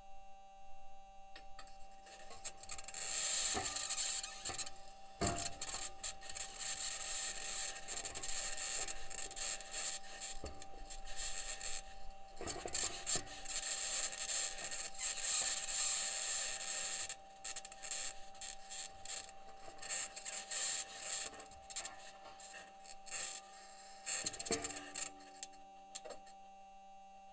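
Perseverance Mars rover's metal wheels crunching and scraping over rock as it drives, a scratchy rasping with knocks that starts about two seconds in and fades near the end, with a couple of short squeaks near the end. A steady hum runs underneath.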